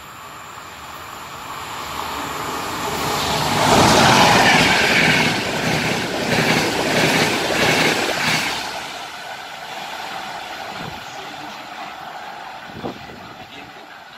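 Intercity train hauled by a Trenitalia E.444 electric locomotive passing through a station at speed. It builds to a loud rush over the first few seconds, then the coaches go by with a rhythmic clatter of wheels over the rails, and the sound fades away after about eight seconds.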